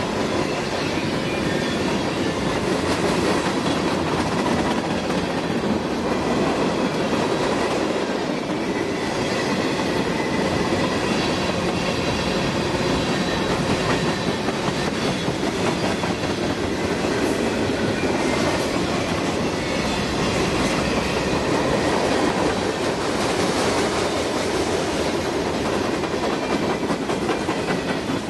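Freight cars of a passing mixed freight train (tank cars, covered hoppers and boxcars) rolling by close at hand: a steady, loud rumble and clatter of steel wheels on rail, with faint high ringing tones from the wheels.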